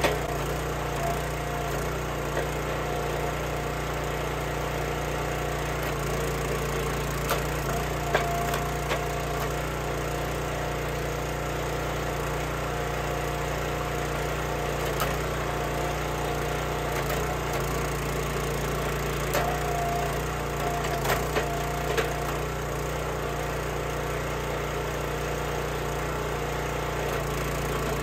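Small gas engine of a hydraulic log splitter running steadily while the wedge splits firewood, with occasional sharp cracks and knocks as the wood splits apart and pieces are handled.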